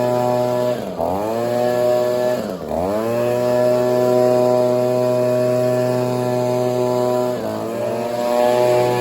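Gas leaf blower's two-stroke engine running at high throttle. Its pitch drops and climbs back three times as the throttle is eased off and reopened: about a second in, near three seconds, and about a second and a half before the end.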